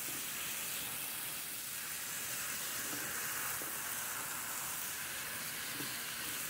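Spaghetti squash and vegetables sizzling with a steady hiss in an electric skillet as they are stirred with a silicone spatula.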